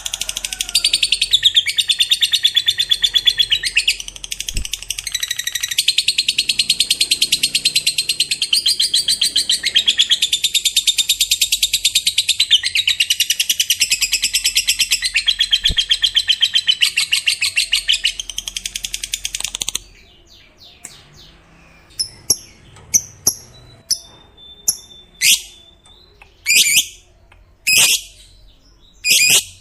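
Lovebird giving its long 'ngekek' chatter: a rapid, unbroken, high-pitched trill that runs for about twenty seconds. It then stops, and the bird gives short separate chirps and squeaks.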